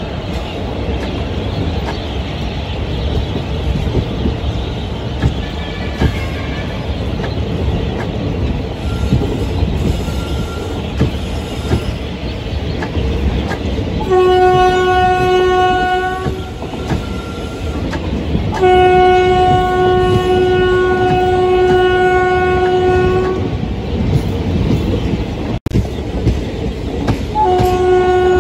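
Passenger coaches of an express train rolling past with a steady rumble and clickety-clack of wheels on rail joints. The electric locomotive's horn sounds three times: a blast of about two seconds some 14 seconds in, a longer blast of about five seconds starting some 19 seconds in, and another starting near the end.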